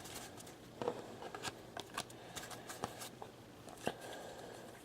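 Trading cards being slid and flipped through the hands one after another: quiet, irregular clicks and rustles.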